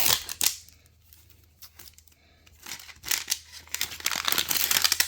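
Toy packaging being torn open and crinkled by hand, with a short tear at the start and a longer stretch of tearing and crinkling from about three seconds in.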